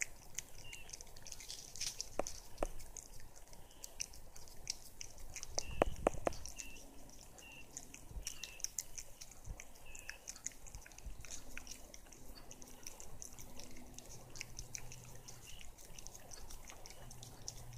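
A cat licking a paste treat from a squeeze tube: many quick, wet tongue clicks and smacks. There is one dull bump about six seconds in.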